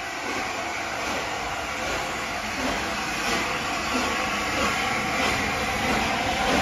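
Steam locomotive 60007 Sir Nigel Gresley, a three-cylinder LNER A4 Pacific, pulling away. Its exhaust beats come roughly every 0.7 s over a steady hiss, getting louder.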